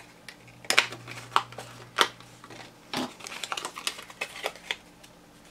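Black cardstock being cut with a craft knife on a cutting mat and then handled as the cut-out centre is freed from the frame: scattered sharp clicks and crackles of stiff card, several louder ones in the first three seconds and lighter ticks after.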